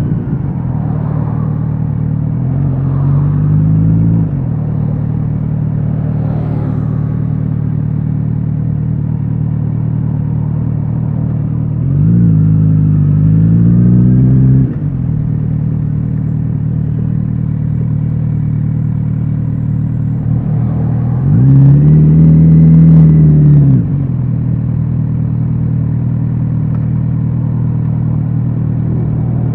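Kawasaki Z900RS 50th Anniversary's inline-four engine and exhaust running at a steady low note. Three times, about 3, 12 and 21 seconds in, it revs up louder for a couple of seconds and then drops back.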